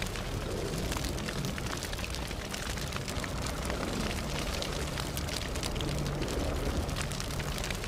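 Ambient sound effect of steady fine crackling over a low rumble.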